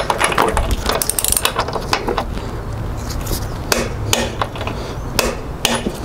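Torque wrench ratcheting with quick metallic clicks as a nut at a motorcycle's rear wheel is tightened down to torque. The clicks come thick at first, then a few separate sharp ones near the end.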